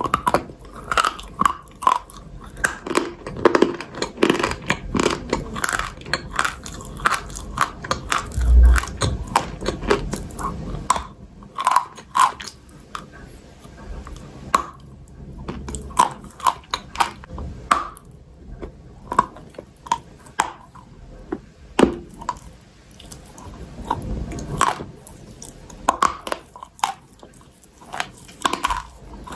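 Close-miked biting and chewing of crunchy chalk and clay, a dense run of sharp crunches and crackles, thinning out in the second half. A single dull low thump stands out about a third of the way in.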